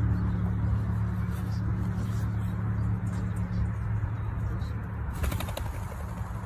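Steady low hum with a haze of noise, then a quick flurry of wingbeats about five seconds in as a cock ring-necked pheasant takes off.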